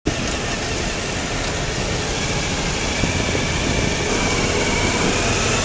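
Steady road traffic noise of vehicle engines running.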